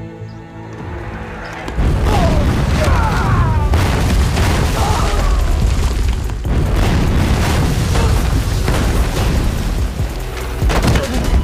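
Film sound effects of explosions: a loud booming rumble starts suddenly about two seconds in and runs on, with repeated blast and impact cracks, over a dramatic score.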